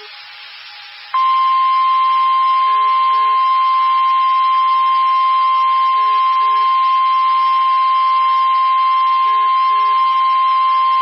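Emergency weather alert tone: a single loud, steady tone of about 1 kHz, held for about ten seconds. It is the NOAA Weather Radio warning alarm tone that signals a warning message is about to follow. It starts suddenly after about a second of radio hiss and cuts off abruptly.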